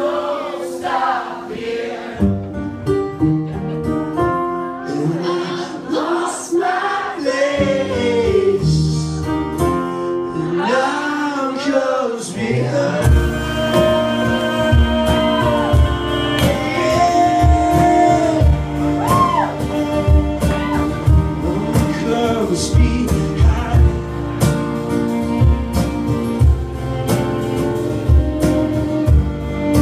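Live acoustic band: a man singing over acoustic guitar, with drums, cello and keyboard. About 13 seconds in, the drums and low end come in fully with a steady beat while the singing carries on.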